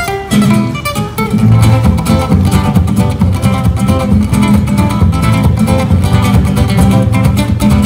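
Two acoustic guitars playing together: picked melody notes over a fast, driving strummed rhythm that picks up about a second and a half in.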